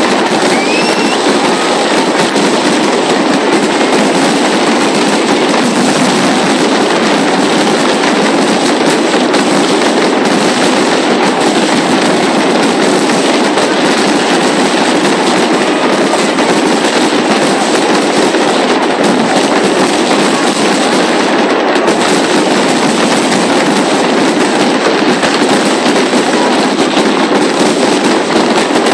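Aerial fireworks display going off in a dense, unbroken barrage of bursting shells and crackle, with no pause.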